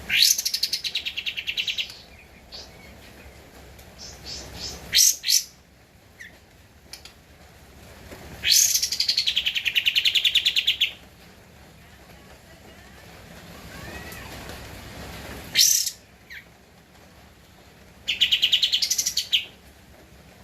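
Kapas tembak bulbul singing: three loud, fast trilling phrases of about two seconds each, with short sharp calls in between.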